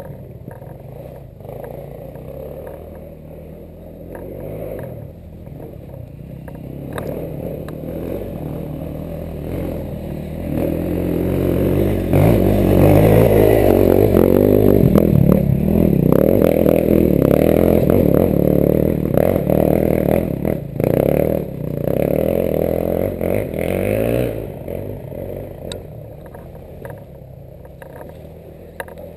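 Dirt bike engine revving hard up a steep climb, growing louder from about ten seconds in as it passes close by, then fading after about twenty-four seconds. A steady low engine idle runs underneath.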